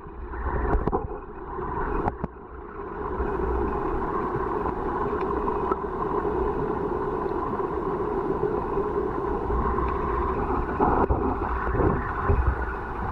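Creek water rushing and gurgling, heard underwater through a submerged Nikon AW110 camera's housing as a muffled, steady rumble. A few sharp knocks sound in the first two seconds.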